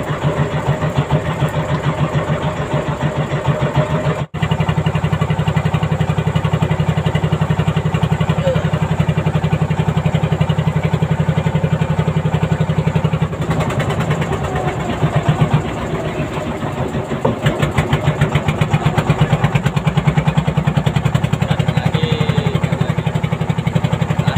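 Inboard engine of a wooden fishing trawler running steadily under way, with a rapid, even pulse. It breaks off for an instant about four seconds in.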